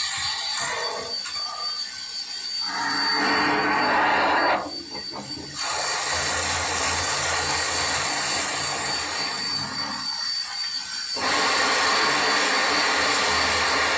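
Sound-equipped model locomotive playing recorded train sounds through its small onboard speaker: a steady hiss over a low hum that changes abruptly a few times, with a short dip about five seconds in.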